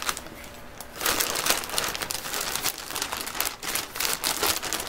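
Plastic poly mailer bag crinkling and tearing as it is pulled open by hand, the dense crackle starting about a second in.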